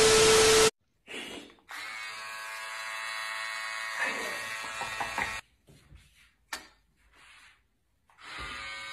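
A short burst of TV static with a steady beep tone, cut off abruptly. Then electric hair clippers run with a steady buzz, stop about five seconds in, and start buzzing again near the end.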